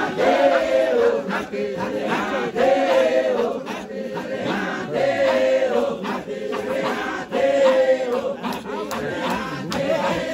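A group of men chanting in unison, one short sung phrase repeated about every two and a half seconds.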